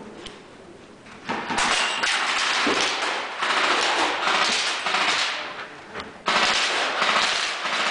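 Airsoft guns firing on full auto in two long, dense bursts, the first starting about a second in and the second following a brief pause near the six-second mark.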